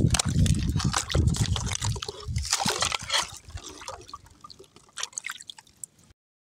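Liquid sloshing and trickling with small wet clicks, loudest at first and thinning out after about two and a half seconds, then cutting off abruptly to silence near the end.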